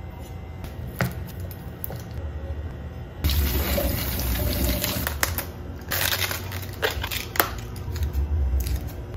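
Tap water running and splashing into a stainless steel sink as a head of cabbage is rinsed under it, starting suddenly about three seconds in. Before that, a few light clicks of a spatula and utensils on the chopping board.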